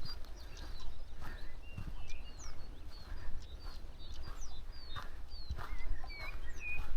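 Footsteps of someone walking, about one step a second, over a low rumble of wind on the microphone, with small birds chirping and twittering in short high notes throughout.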